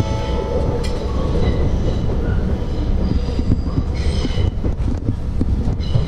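Running noise inside the passenger car of a JR 651 series electric train under way: a steady low rumble with a high wheel squeal about three to four seconds in. The last notes of the four-note announcement chime fade away at the very start.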